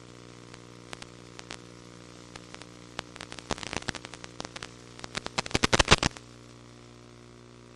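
Steady electrical hum with crackling static: scattered clicks that thicken into a dense burst of loud crackles, then cut off suddenly about six seconds in.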